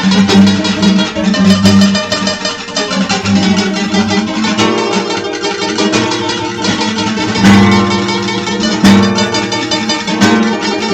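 Dark folk instrumental music led by plucked acoustic guitar, with a few strongly struck notes in the second half.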